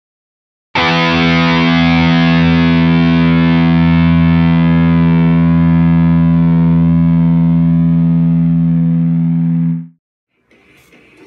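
A single distorted electric guitar chord, struck once about a second in and left ringing at one unchanging pitch for some nine seconds before it cuts off: a stinger opening a show segment.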